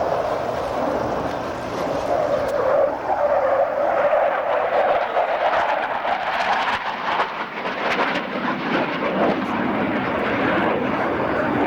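Aircraft flying past: a continuous engine rush that grows a little louder about three seconds in and stays strong.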